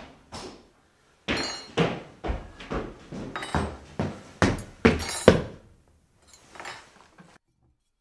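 A run of about a dozen sharp knocks and thuds, irregularly spaced and some with a brief ringing, followed by a few fainter ones near the end.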